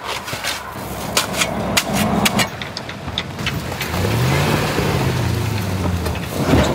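Pickup truck engine pulling onto a berm of frozen dirt and snow. Crunches and clicks come first, then about four seconds in the engine revs up and falls back as the truck works over the berm.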